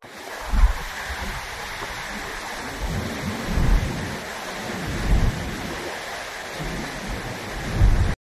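Wind gusting on the microphone in deep, rumbling buffets, four strong ones, over a steady rushing hiss of wind and rain in the wake of a typhoon.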